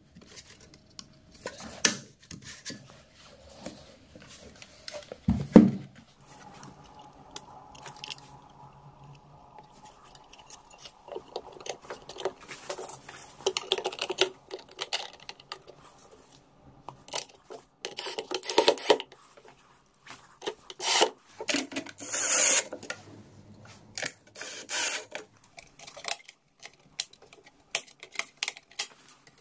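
Handling noise as a Pioneer coaxial car speaker and its mesh grille are fitted into a subwoofer cabinet: scattered clicks, scrapes and rubbing of plastic and metal, with one louder thump about five and a half seconds in.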